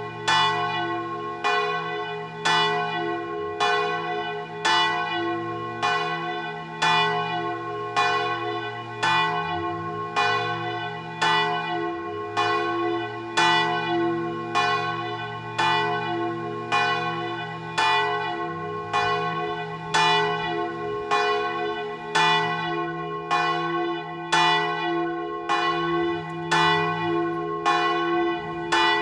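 The largest of the church's four bronze bells, cast by Lera, swinging full circle in its tower and struck by its clapper about once a second. Each stroke rings on into the next over a steady hum.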